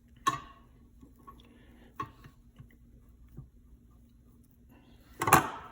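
Kitchen handling sounds from dough being pressed into a loaf pan. There are two sharp knocks and a few light ticks, then a louder clatter near the end, over a faint steady hum.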